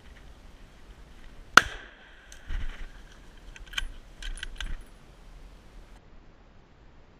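One rifle shot about a second and a half in, ringing briefly afterwards, followed by a run of sharp metallic clicks and clinks over the next two seconds or so.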